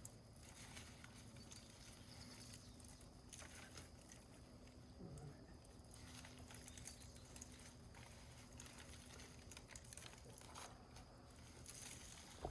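Near silence: room tone with faint scattered rustles and light taps over a faint steady low hum.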